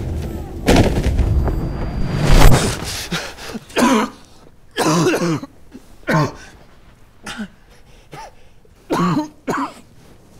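A loud low rumble builds for the first two and a half seconds and cuts off sharply. Then a man coughs and gasps in several short fits.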